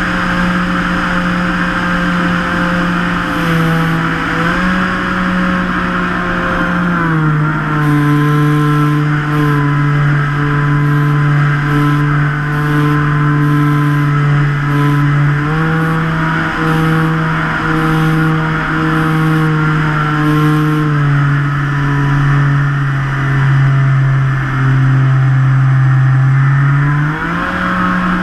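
Twin brushless electric motors and propellers of a radio-controlled Great Planes Catalina PBY, heard up close from on board, whining steadily as two tones at slightly different pitches. The pitch drops about a quarter of the way in, rises around halfway, drops again, and climbs back near the end as the throttle is changed.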